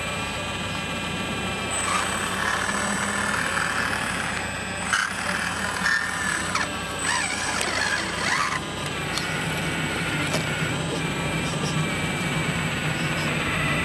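Scale RC hydraulic excavator's pump whining steadily as the boom, arm and bucket dig. Its pitch shifts and wavers in the middle as the arm works under load, with a few light clicks.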